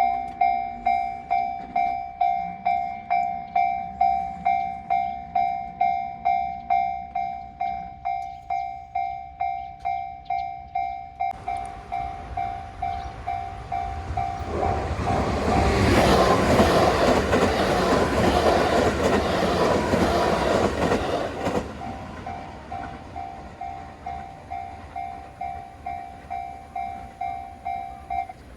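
Japanese level-crossing warning bell sounding its repeated "kan-kan" at about two and a half strokes a second. A train runs through the crossing from about twelve seconds in; its wheel and rail noise swells, drowns the bell and fades again, and the bell keeps ringing after the train has gone.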